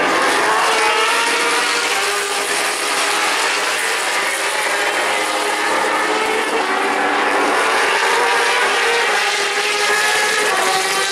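World Superbike racing motorcycle engines at high revs, several at once, their pitches shifting up and down as they run through the corners.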